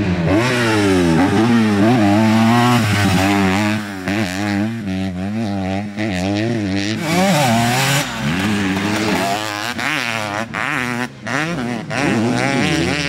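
A 250 two-stroke dirt bike engine on the move, revving up and falling back again and again as the throttle is worked.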